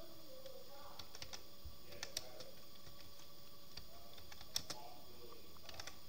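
Typing on a computer keyboard: irregular key clicks, some in quick runs, the loudest about four and a half seconds in.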